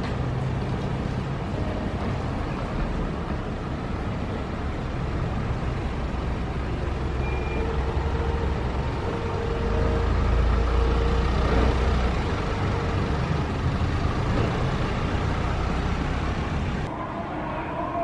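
Cars driving over a railway level crossing: a steady low engine and tyre rumble that grows louder about ten seconds in, as two cars cross the tracks.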